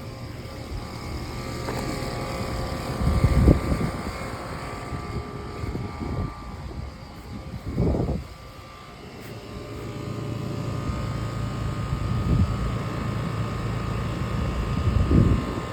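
Outdoor air conditioner condenser units running with a steady mechanical hum, with wind gusting on the microphone several times.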